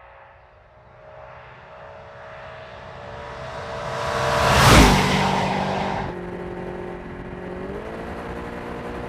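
2013 Audi RS5's 4.2-litre V8 running as the car approaches and passes close by, growing louder to a peak about halfway through with a rush of tyre and wind noise. The engine then drops to a quieter, steady note, which rises in pitch near the end as the car accelerates.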